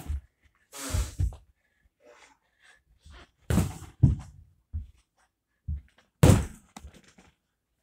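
Kicks and punches landing on a freestanding punching bag: a string of about eight dull thuds at irregular gaps, the loudest a little past six seconds in.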